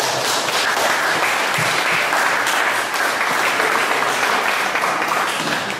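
Audience applauding, easing off near the end.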